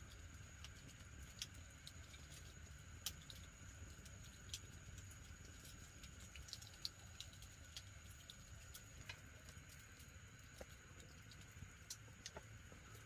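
Faint crackling of a small wood fire: scattered sharp pops at irregular intervals over a faint steady high-pitched tone.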